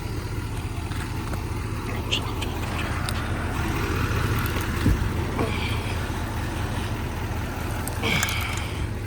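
Pickup truck engine running steadily with a low rumble while towing a trailer through mud.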